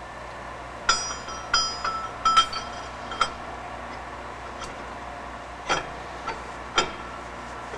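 Metal parts and tools clinking and knocking, each strike ringing briefly. Several strikes come close together in the first three seconds and a few more follow at wider gaps.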